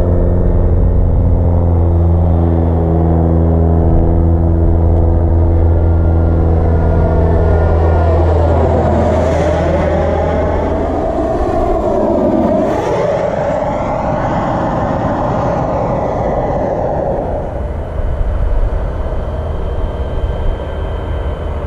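Kingtech K80G2 turbine of a model MB-339 jet passing low overhead: a jet rush that swells, sweeps down in pitch as it passes about twelve seconds in, then fades as the jet flies off. A steady low hum runs under the first half and stops about eleven seconds in.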